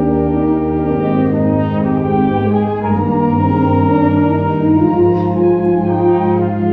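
Band music led by brass, playing long held chords that move from one to the next every second or two.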